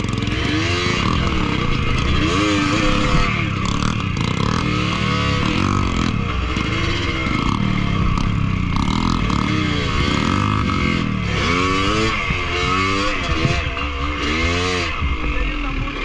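Yamaha DT125 two-stroke single-cylinder dirt bike engine revving up and down again and again at low speed as the bike is blipped over river rocks, with rushing river water behind.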